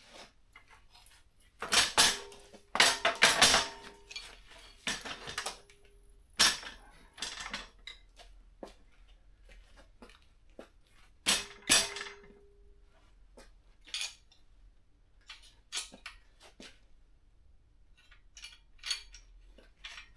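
Metal motorcycle parts and tools clanking and clinking as they are handled and set down, in irregular bursts with a few louder clanks that ring briefly.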